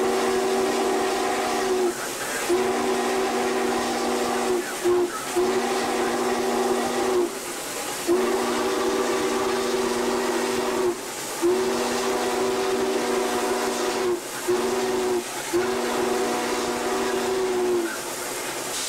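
The steam whistle of Norfolk & Western Class J 611, a chord of several tones, blown in two sequences of long, long, short, long blasts: the grade-crossing signal. A steady steam hiss sounds under it.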